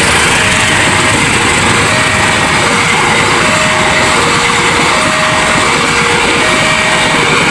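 Railway level-crossing warning siren sounding a two-tone alarm, switching between a lower and a higher note about every three-quarters of a second, over loud steady rushing noise.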